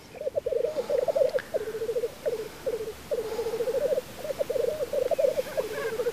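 Male black grouse rookooing in lek display: a low, bubbling song of rapid pulsed trills, delivered in phrases with short breaks between them.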